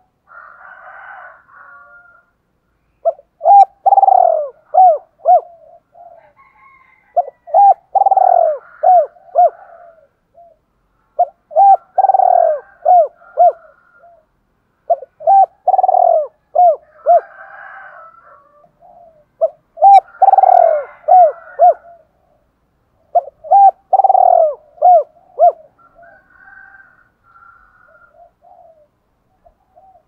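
Spotted dove cooing: a phrase of a few short coos that falls in pitch, repeated about every four seconds, six times.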